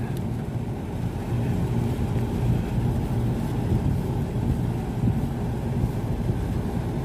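LG 5-ton split air-conditioner outdoor unit running: a steady hum from the compressor and condenser fan. The system has lost its refrigerant through a leak, so the compressor runs with no pressure on the gauge.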